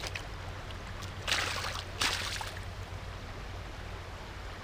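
River water running, with two short splashes about a second and two seconds in at the landing net holding a brown trout in the water.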